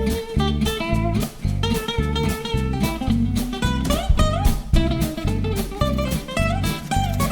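Background music with plucked guitar over a steady drum beat.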